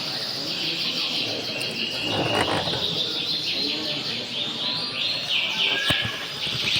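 Domestic canaries singing in competition, a continuous run of fast, high trills and rolls with phrases overlapping one another.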